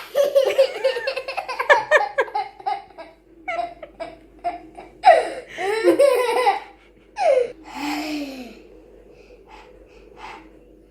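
A child laughing hard in fits: a rapid run of giggles for the first three seconds, then shorter bursts of laughter and gasping breaths, fading out after about eight and a half seconds.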